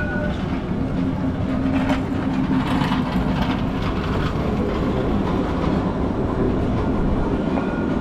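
Light-rail tram running past: a steady rumble with a low hum held through the first half.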